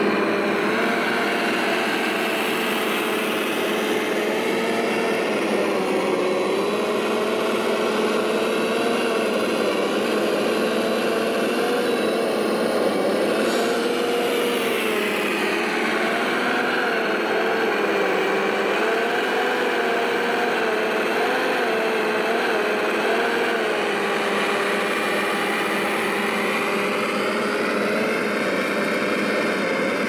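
Radio-controlled model vehicle running: a steady engine-like hum whose pitch wavers up and down as it drives.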